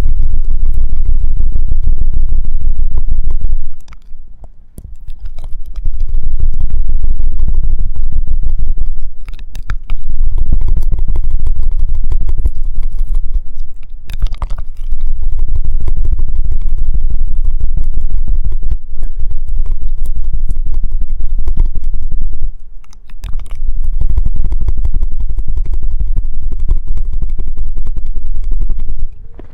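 ASMR trigger sounds: something rubbed and scraped right against the microphone, giving loud, low rumbling scrapes in four long stretches with short breaks between them.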